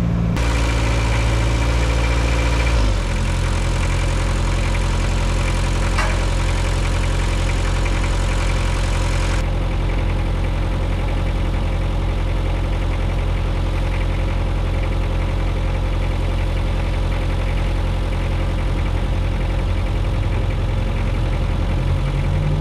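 Small tracked excavator's engine idling steadily, shifting to a lower note about three seconds in.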